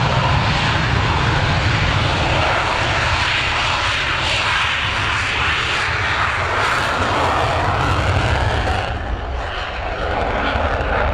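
F-16 jet fighter on its takeoff run with afterburner lit, a loud steady jet roar that eases a little near the end as it lifts off.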